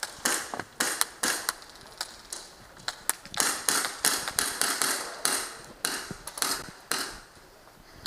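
Airsoft gas blowback rifles firing: sharp clacks of single shots, irregular, about two or three a second.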